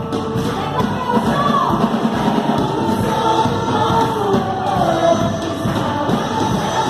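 Gospel worship song played back: a female voice sings a gliding melody over a full band, with backing voices.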